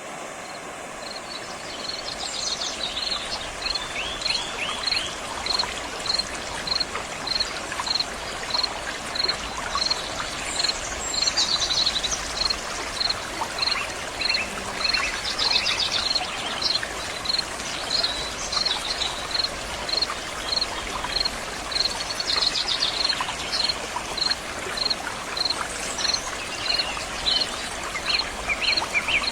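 Water flowing and falling in a stream, a steady rushing that fades in over the first couple of seconds. An insect chirps about twice a second throughout, and birds call now and then.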